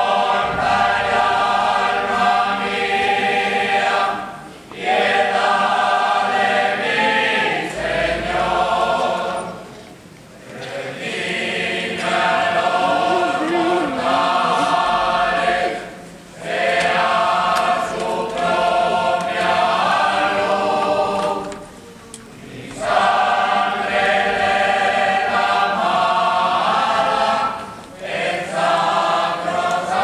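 A group of men singing a slow religious chant a cappella, in long phrases of about six seconds with short pauses between them.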